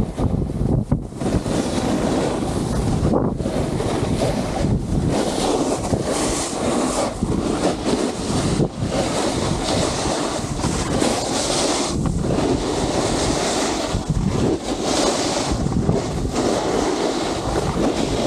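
Wind buffeting an Insta360 action camera's microphone while riding downhill at speed on snow, with repeated swells of hiss as edges scrape across the snow.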